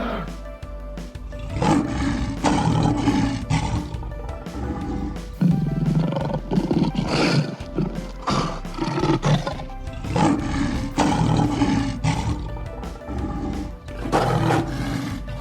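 A tiger roaring again and again, with background music playing under it.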